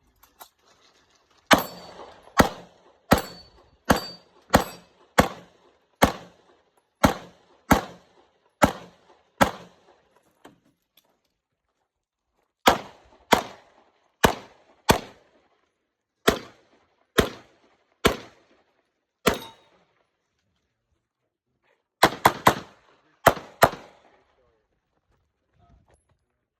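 Pistol shots fired in strings: about eleven steady shots roughly a second apart, a pause of a couple of seconds, about eight more, then a quicker group of five near the end.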